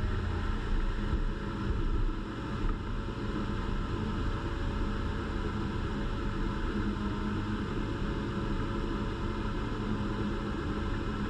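Engine of a vintage Dodge four-wheel-drive truck running steadily as it drives a trail, with a faint wavering whine over the engine note.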